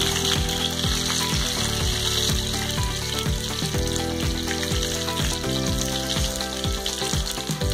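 Hot oil sizzling steadily as masala-coated carp pieces shallow-fry in a pan, with background music with a steady beat playing over it.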